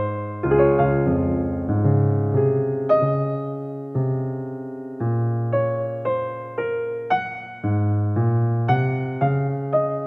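Background piano music: a gentle run of notes and chords, each struck and fading away.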